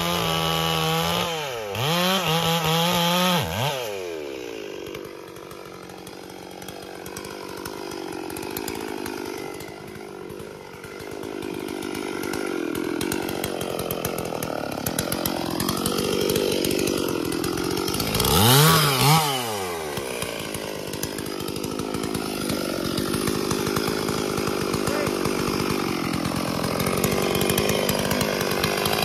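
Stihl MS 440 two-stroke chainsaw running at high revs, then dropping and blipping the throttle a few times before falling back to a low idle. It picks up again, with one sharp rev and fall about two-thirds of the way through, and keeps running at part throttle to the end.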